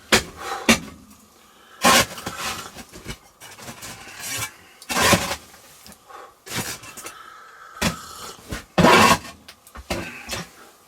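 Irregular knocks, bangs and scrapes of hands-on work in a small room, with a few loud sharp impacts about two, five and nine seconds in.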